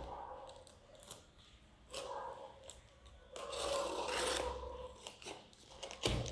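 A sharp knife cutting and scraping through the packing tape on a parcel, in two drawn-out strokes with rustling of the packaging.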